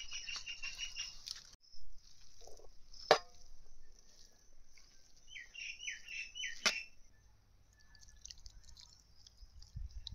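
A bird calling in a quick run of five or six chirps, twice, about five seconds apart, over a steady high hiss. Two sharp knocks fall in between; the first, about three seconds in, is the loudest thing heard.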